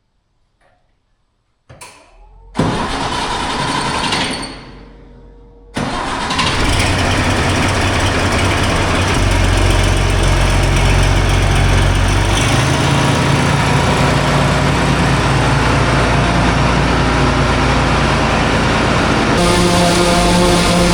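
Farm machinery engine starting, then running steadily at working speed, likely for chopping corn. The sound starts suddenly after about two and a half seconds of near silence, fades briefly, and comes back as a loud steady run a few seconds later.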